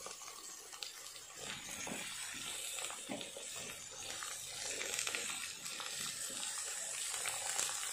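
Brinjal pieces frying in hot oil in a pan, a steady sizzling hiss. Scattered clicks and scrapes as a metal slotted ladle stirs them.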